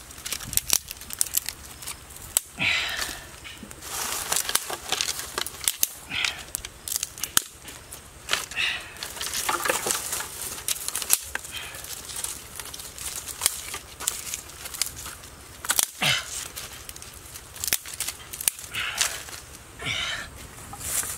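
Dry twigs and sticks snapping and rustling as they are broken and stacked onto smoking kindling, with irregular sharp crackles and pops as the small campfire catches alight.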